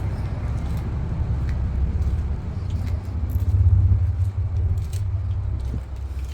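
Diesel engine of a concrete mixer truck running with a steady low rumble that swells briefly about three and a half seconds in.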